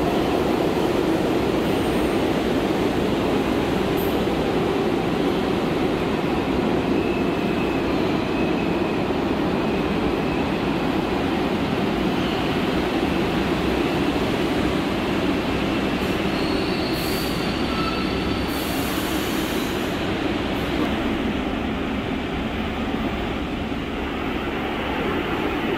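New York City subway train moving along the track, a steady rumble throughout, with faint high-pitched wheel squeals coming in now and then in the middle stretch.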